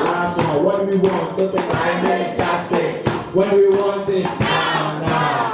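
Live music with singing: voices holding and bending sung notes together, choir-like.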